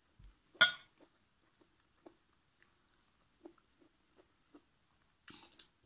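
A fork clinks sharply once against the plate about half a second in, with a brief ring, followed by soft chewing of sticky rice and mushroom curry and a couple of short clicks near the end.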